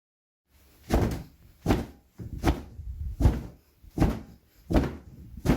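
A run of heavy thumps, about one every three-quarters of a second, starting about a second in.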